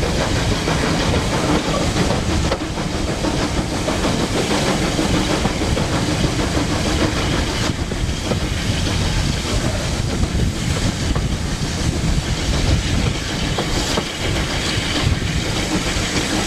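Steam train running along the line, heard from an open carriage window: a steady, loud rumble of wheels on the rails mixed with the hiss of the locomotive's steam.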